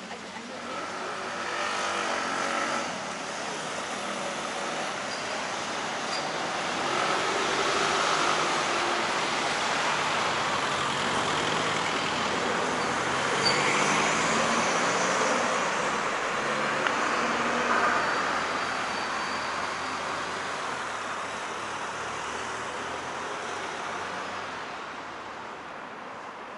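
Road traffic, cars and a bus, driving past close by on a city street, a steady rush of engines and tyres that swells and fades as each vehicle goes by, loudest through the middle.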